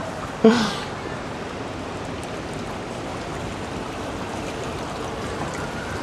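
Water rushing steadily along a water-ride channel around the moving boat. A brief voice-like sound about half a second in.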